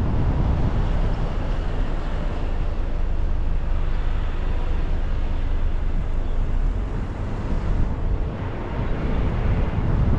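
Steady low rumble of a car driving slowly through a turn: engine and tyre noise.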